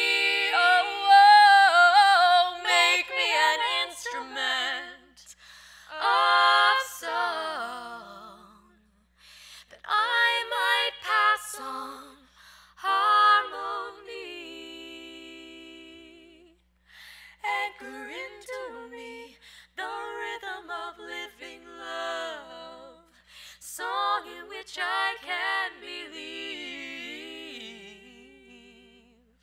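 Women's voices singing a cappella, without instruments, in phrases broken by short pauses.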